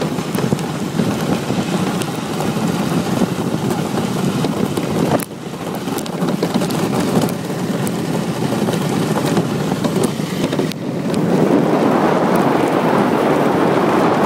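Wind buffeting the microphone over the rumble and hiss of a DN iceboat's steel runners sliding fast across the ice. A steady, loud noise that drops briefly twice, about five and eleven seconds in.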